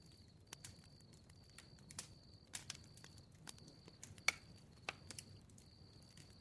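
Bonfire crackling softly: irregular small pops and snaps of burning wood, with one louder pop about four seconds in.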